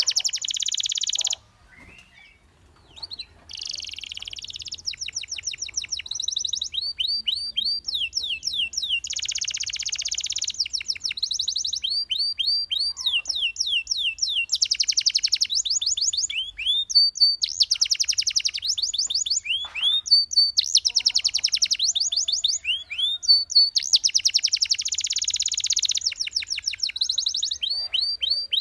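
Domestic canary singing a long song of fast trills and quick repeated rising notes, one phrase after another, with a short pause about two seconds in.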